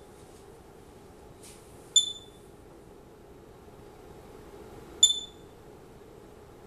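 Homemade Geiger counter's piezo beeper giving a short high chirp for each count from its Geiger–Müller tube, twice, about three seconds apart, at an irregular rate. The chirps sound over a faint steady hum.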